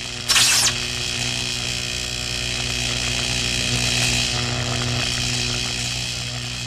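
Electric arc buzz sound effect: a sharp crackling zap about half a second in, then a steady electrical buzz with a low hum underneath.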